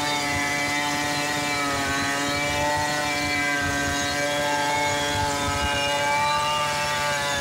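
Stihl two-stroke chainsaw running at full throttle under load, ripping lengthwise through a mahogany log. The engine note stays high and steady, dipping slightly in pitch a couple of times as the chain bites deeper.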